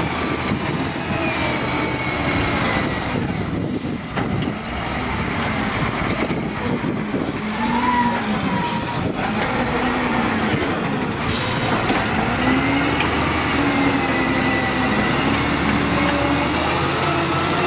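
Caterpillar 966H wheel loader's diesel engine working under load, revving up and down as it drives and pushes demolition rubble with its bucket. A few sharp knocks of breaking debris come through.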